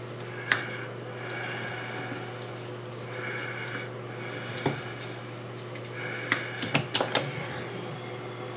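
A few light metallic clicks and taps, several in quick succession near the end, from small tools and faucet parts being handled while the faucet handle's set screw is worked on, over a steady low hum.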